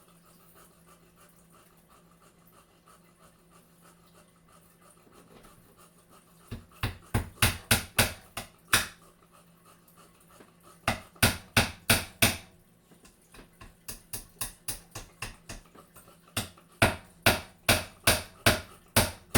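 Hammer driving small nails into a wooden frame: quick runs of blows at about four a second, in four sets with short pauses, one set lighter than the rest. They begin after about six seconds of near quiet with a faint hum.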